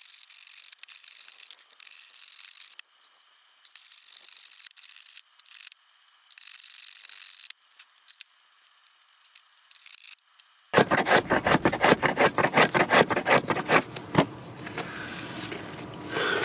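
Hand plane shaving a wooden wand blank: a series of short hissing strokes, each about a second long with pauses between. About ten and a half seconds in, a much louder run of rapid strokes takes over, several a second.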